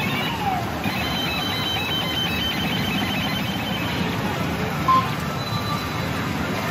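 Pachinko parlor din: a dense, steady wash of machine noise with electronic jingles and a run of beeping tones from the pachinko machines, including the first-generation Hokuto Muso machine. A short, louder beep comes about five seconds in.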